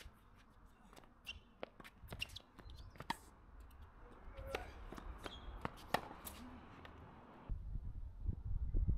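Scattered light taps and footsteps on a hard tennis court, the loudest tap about six seconds in, with a low rumble setting in at about seven and a half seconds.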